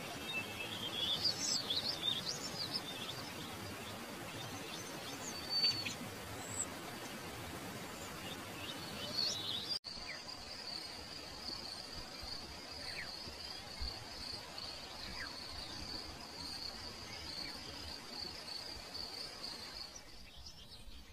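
Birds chirping and calling over a steady background hiss. About ten seconds in the sound cuts off and is replaced by an insect's steady high buzz, with a few faint chirps over it.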